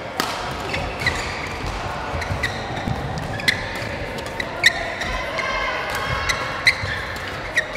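Badminton rackets smacking a shuttlecock in a fast doubles rally, a sharp crack roughly every second, with short squeaks of court shoes between the hits.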